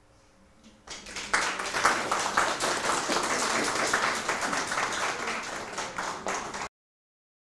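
Audience applauding, starting about a second in and cut off abruptly near the end.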